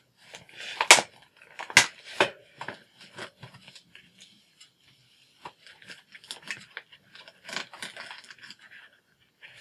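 Fine-liner pens being handled and slotted into their case: a few sharp clicks and knocks in the first couple of seconds, then lighter taps and rustling of packaging.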